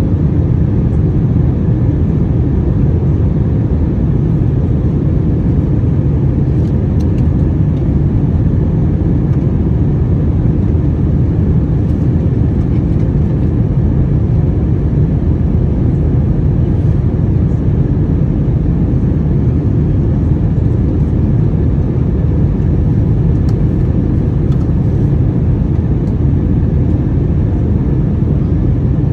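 Steady cabin noise of an Airbus A321-200 airliner in flight: a constant low rumble of engines and rushing air.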